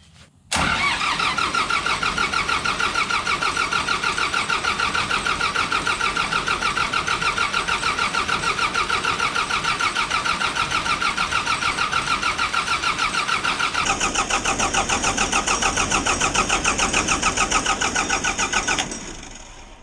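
Starter cranking the John Deere 4045 turbocharged four-cylinder diesel engine with a steady, even pulsing, for about eighteen seconds without the engine catching. It starts suddenly about half a second in, a higher whine joins a few seconds before it stops, and it winds down near the end.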